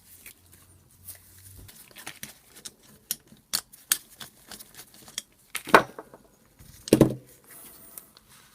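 Tools and metal parts of a vintage AEG BH25 rotary hammer being handled during disassembly: scattered small clicks and clinks, with two louder knocks about six and seven seconds in.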